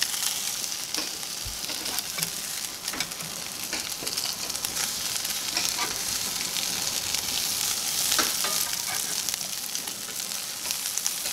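Beet cakes frying in hot oil in a cast-iron skillet, a steady sizzle, with scattered sharp clicks as they are turned with a slotted metal spatula.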